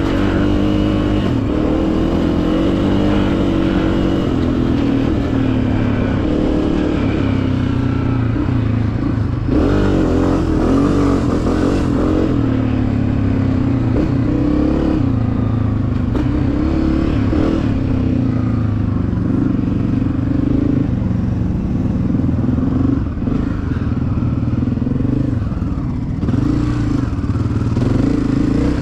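Honda CRF250F dirt bike's single-cylinder four-stroke engine running while riding, its pitch rising and falling with the throttle, with a sharp rev-up about ten seconds in.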